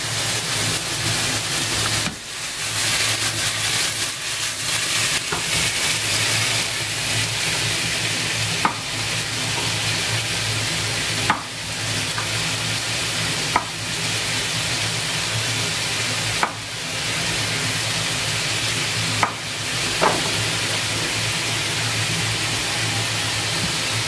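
Chicken pieces frying in hot butter in a pan, a steady sizzle. A handful of sharp knife taps on a plastic cutting board, irregularly spaced, as mushrooms are sliced.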